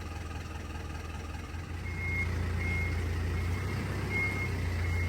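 A vehicle's reversing alarm beeping, five short high beeps about three-quarters of a second apart starting about two seconds in, over the low steady hum of its running engine.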